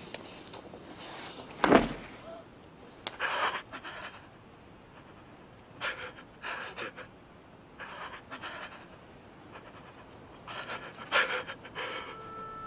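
A man breathing hard, panting in spaced bursts of heavy breath. A single sharp thud comes about two seconds in.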